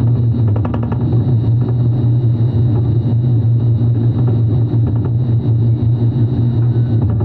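Welding machine running with a steady, loud low hum, with a brief run of rapid clicks about half a second in.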